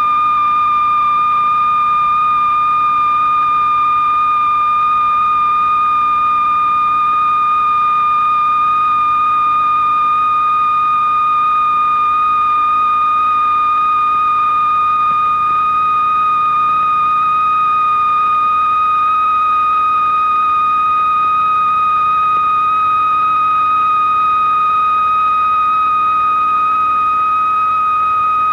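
Electronic sine-wave tone sounding loud and unbroken at a high, whistle-like pitch, with faint overtones above it. It rises so slowly that the pitch barely seems to move: part of one long continuous glissando that climbs through the whole film.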